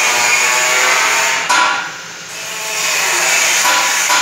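A loud, steady whirring machine noise that drops away briefly about two seconds in.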